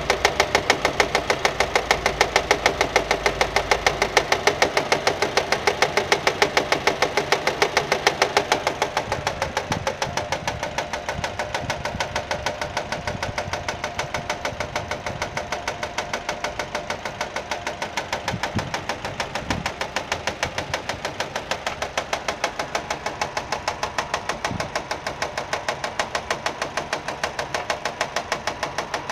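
Nissan Micra 1.2 petrol engine idling with a fast, even ticking knock. The noise was later traced to a fraying alternator belt slapping against the metal body as it turned, not to a fault inside the engine.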